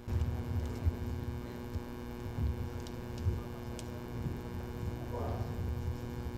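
Steady electrical mains hum with a low rumble from a sound system, coming on abruptly at the start, with a few faint clicks.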